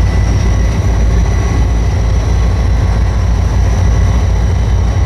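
Covered hopper cars of a freight train rolling past close by: a loud, steady rumble of steel wheels on the rails, with faint thin high steady tones above it.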